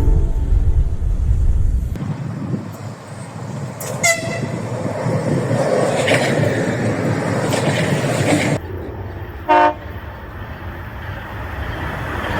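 Trains passing: a loud low rumble that cuts off suddenly, then the steady noise of a train rolling by with a short, sharp horn toot about four seconds in. After another abrupt change, a second brief horn toot comes about a second later.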